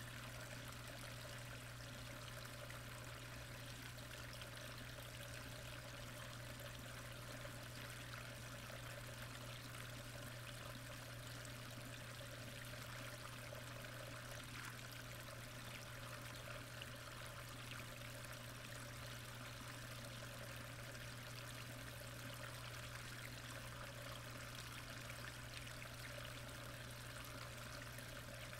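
Faint, steady rushing of pond water picked up by an underwater camera, with a constant low hum beneath it.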